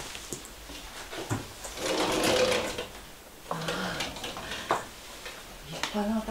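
Footsteps and shuffling on the wooden floor of an old house, with scattered knocks and rustling.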